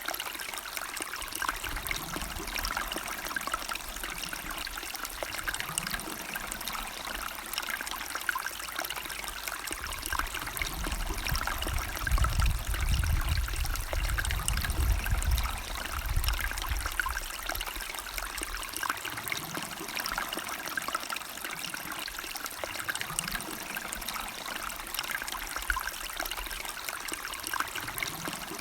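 River or stream flowing over stones, a steady trickling and babbling. A low rumble swells in the middle, then fades.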